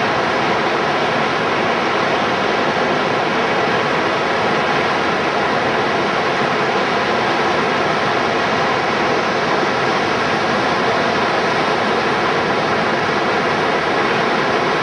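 Steady, loud rush of fast river water pouring through rapids and over a standing wave.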